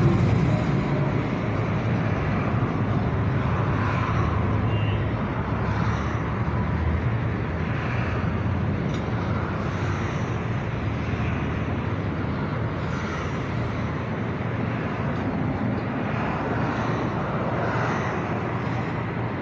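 Steady road traffic noise: a continuous rush of passing vehicles.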